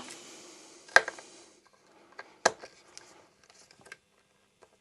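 Screwdriver being worked at tight screws in the plastic base of a Sonos BR100: a soft rustle of handling at first, then scattered sharp clicks and ticks of the tool on the screws and casing, the two loudest about one second and two and a half seconds in.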